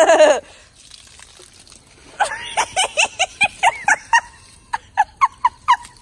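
A person laughing: a quick run of short, high-pitched bursts, about four a second, starting about two seconds in and going on nearly to the end, after a brief shout right at the start.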